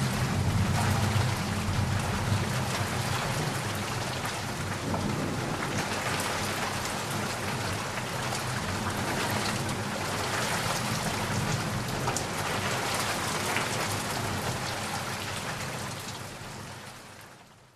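Heavy rain falling steadily, with a low rumble of thunder under it in the first few seconds; the sound fades out near the end.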